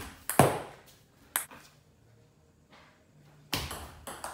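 Table tennis ball clicking sharply off bats and table in a rally: two clicks in the first second and a half, a pause of about two seconds, then a loud hit near the end followed by quick clicks as the next rally starts.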